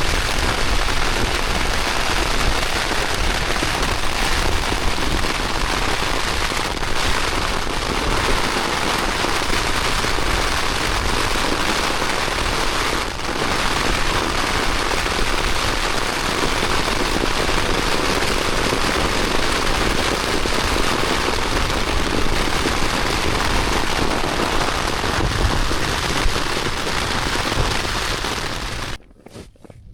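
Heavy rain lashing a tent's flysheet in strong wind, a dense, loud, unbroken hiss and drumming that cuts off suddenly near the end.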